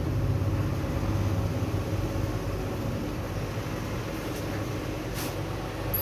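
Steady low mechanical hum with a few light clicks in the second half as small metal parts of a turbocharger are fitted by hand.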